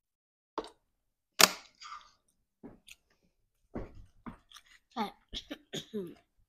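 People chewing and eating, with mouth noises and a few sharp clicks and knocks, the loudest about a second and a half in.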